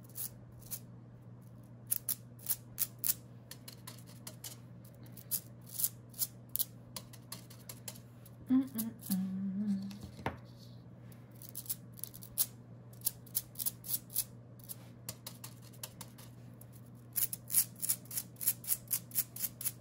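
A finger flicking the bristles of a stiff brush loaded with watered-down ink, spattering it onto paper: a run of sharp little clicks, sometimes single and sometimes in quick flurries, fastest near the end.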